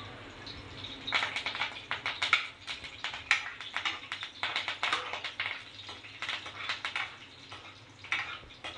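Green chillies and curry leaves crackling and spattering in hot oil in a steel kadai, starting about a second in, while they are stirred with a metal spoon against the pan.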